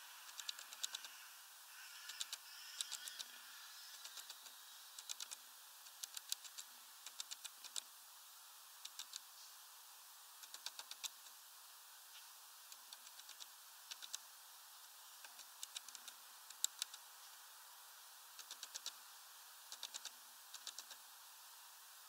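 Great tit pecking at a wooden feeder perch: quick runs of three to six sharp taps, repeating every second or so.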